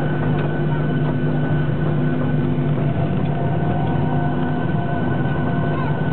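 Boeing 737-800's CFM56-7B jet engines running at taxi idle, heard inside the passenger cabin as a steady hum with a few held tones, including a thin high whine.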